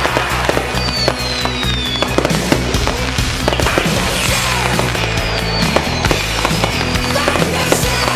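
Aerial fireworks bursting, a dense run of sharp pops and crackles, over music with a steady low bass. A few falling whistles sound high up.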